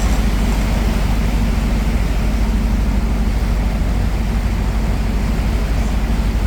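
Cruise boat's engine running steadily, a loud low rumble with a fast even throb.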